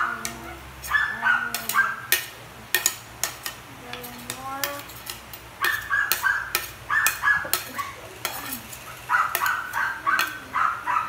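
A spoon scraping leftover food off a plastic children's plate in runs of quick strokes, about three a second, with sharp clicks of the spoon against the plate.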